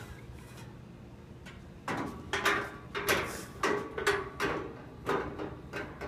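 Metal folding chairs clanking against each other and the chair rack as one is shoved into the stack: a string of about eight sharp metallic knocks, each with a short ring, starting about two seconds in.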